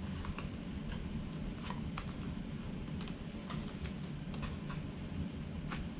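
Scattered faint clicks and taps of a small box being handled and turned over in the hands, over a steady low hum of room noise.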